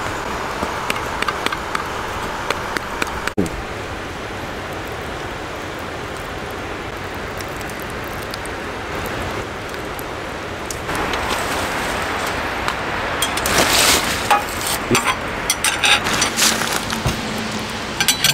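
Steady rain hissing, getting a little louder about two-thirds of the way through, with a patter of sharper drops near the end.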